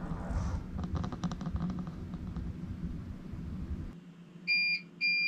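A steady low hum cuts out suddenly about four seconds in as the mains power fails, and a UPS battery backup starts alarming with short high beeps, two in quick succession before the end. Light clicks come in the first couple of seconds.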